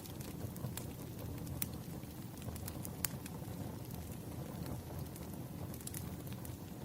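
Firewood burning: a low steady rumble of flames with scattered sharp crackles and pops, a few each second.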